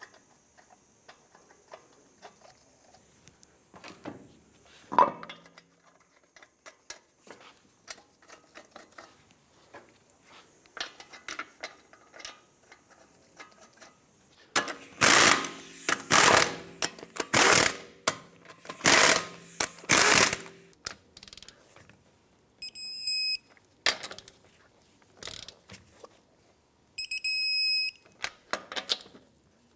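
Lug nuts being threaded on by hand with small metal clicks, then a 3/8-inch impact gun running in several short loud bursts about halfway through as the nuts are snugged up. Near the end, short high beeps in repeated groups, with a few sharp clicks, from an electronic torque wrench signalling that the lug nuts have reached the set torque.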